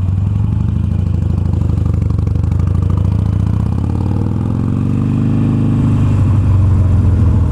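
Harley-Davidson Iron 883's air-cooled V-twin running while riding at low speed, its note rising about halfway through and then easing back down.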